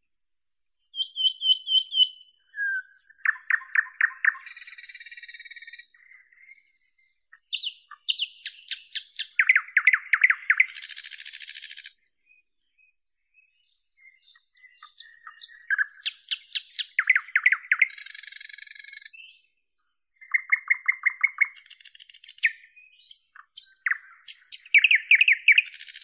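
Nightingale singing: loud, varied phrases of rapidly repeated notes, trills and harsh hissing notes, separated by short pauses, with a silence of about two seconds near the middle.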